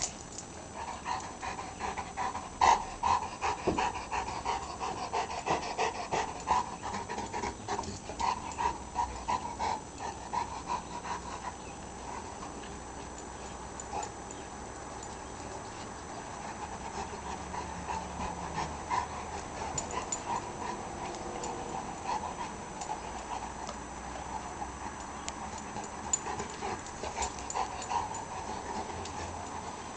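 St. Bernard puppy panting in quick, repeated breaths, with scattered light clicks. The panting is strongest for the first ten seconds or so, then goes on more softly.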